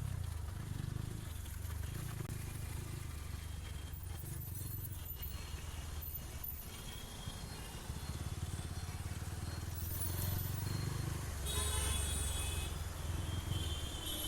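Motorcycle engine running steadily at low revs while riding in slow city traffic, with a brief higher-pitched sound about twelve seconds in.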